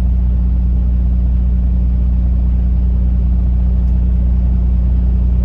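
Truck engine running with a steady low drone that does not change in pitch or level.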